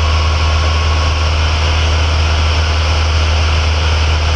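Piper Cherokee light aircraft's piston engine and propeller droning steadily in cruise, heard inside the cabin.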